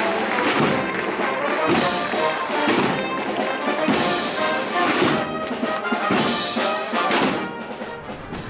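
Wind band playing a processional march: brass, saxophones and bassoon over a steady beat, growing quieter near the end.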